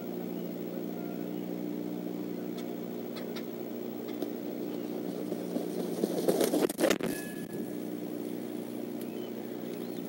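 Bald eagle landing on the nest, heard as a louder rustle and wing noise about six seconds in. A sharp knock follows as she brushes the nest camera's housing, then a brief bell-like ring, all over a steady low hum.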